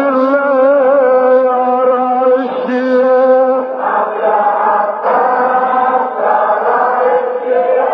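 A man chanting a Shia Muharram lament in Arabic, holding long wavering notes, from an old recording with a narrow, dull sound.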